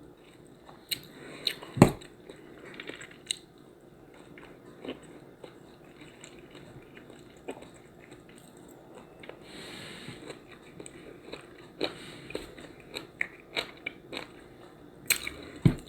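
A person chewing and biting food with many short, sharp mouth clicks and smacks. There are a few louder knocks about two seconds in and again near the end.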